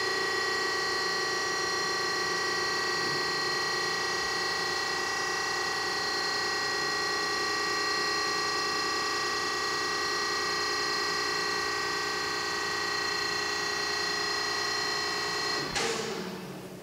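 Klaus Multiparking G63 car stacker's hydraulic drive running with a steady whining hum as the platforms lift two parked cars up out of the pit. Near the end it stops suddenly with a clunk as the platform reaches its top position.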